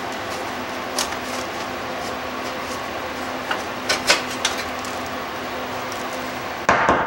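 Shop vacuum running steadily while it cleans debris out from around a lawn tractor's engine shrouding, with a few clicks of the nozzle or gloved hands on the parts. Near the end there is a louder rushing clatter, and then the vacuum's noise stops.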